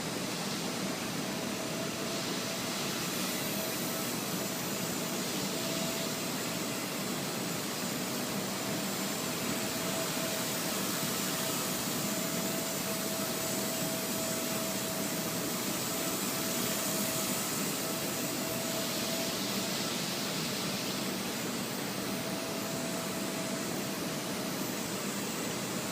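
Blade 130 X micro RC helicopter in flight: its electric motors and spinning rotor blades make a steady whirring hiss with a thin whine that wavers slightly in pitch as the throttle shifts.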